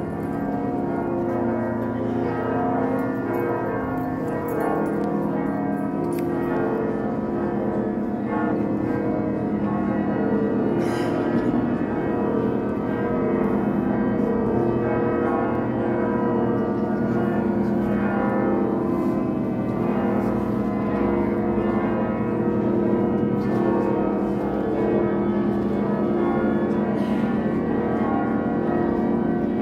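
Church bells ringing together with music, a dense, steady wash of ringing tones that never breaks.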